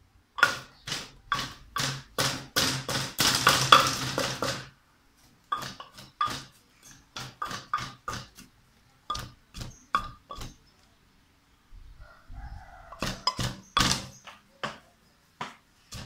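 Wooden pestle pounding in a clay mortar: a quick run of sharp strikes, about two or three a second, for the first few seconds, then slower, uneven strikes with pauses between them.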